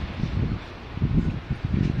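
Wind buffeting the microphone: an uneven low rumble with soft thumps.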